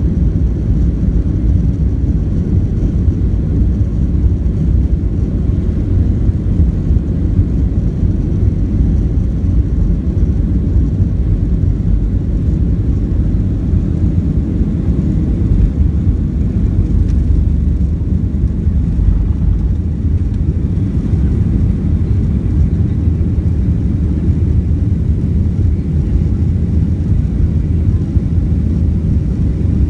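Boeing 737 jet engines and airframe heard from inside the passenger cabin as a steady low rumble.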